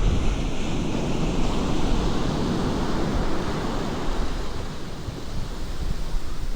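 Ocean surf washing onto a beach, a wave's wash swelling about a second in and easing off near the end, with wind buffeting the microphone.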